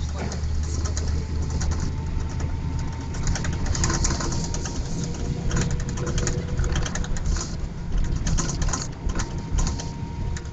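City bus engine running with a steady low drone heard from inside the passenger cabin, with constant clattering and rattling of the bus body and fittings on top.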